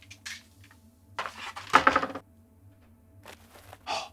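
A plastic toy microscope being set down and handled on a tabletop: a few knocks and clatters, the loudest a little under two seconds in.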